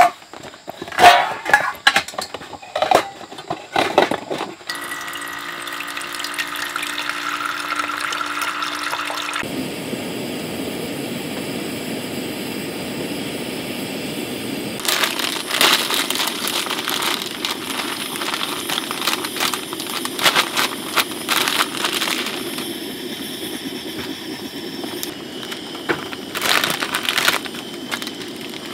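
Water poured into a stainless steel pot for about five seconds. A portable gas camping stove then burns with a steady hiss under the pot, with clicks and rattles of pot and packet handling over it.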